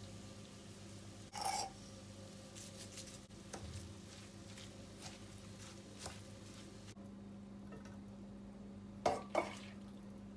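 Kitchen handling sounds: dishes and cutlery clinking and tapping, with one louder clatter about a second and a half in and two sharp knocks near the end, over a steady low hum.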